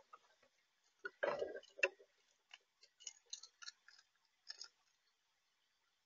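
Raccoon at the bird feeder: irregular clicks and knocks, the loudest with a dull thud about a second in, thinning out and stopping after about four and a half seconds.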